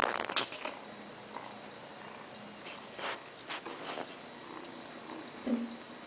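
A kitten purring close by, with scattered light rustles and clicks from handling it and a short low sound near the end.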